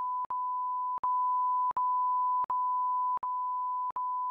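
A steady, mid-pitched electronic beep tone, a pure sine tone, broken by brief clicking gaps about every three-quarters of a second.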